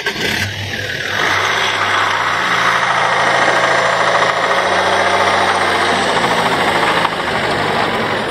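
Van engine running just after starting, its note stepping up and down a few times as it pulls away, with a loud hiss of tyres rolling over a gravel drive.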